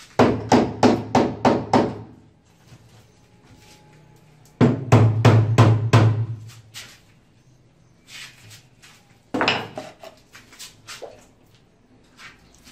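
Club hammer pounding a stainless steel sink down into its fresh mortar bed to level it. Two quick runs of about seven blows each, roughly four a second, at the start and about halfway through, then one more hard blow and a few lighter knocks.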